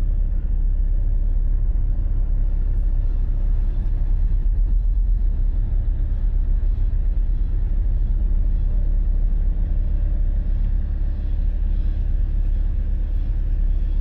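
Motorhome driving along, heard from inside the cab: a steady low rumble of engine and road noise.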